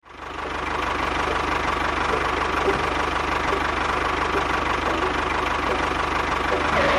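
An engine running steadily with a fast, even low chugging, fading in over the first second.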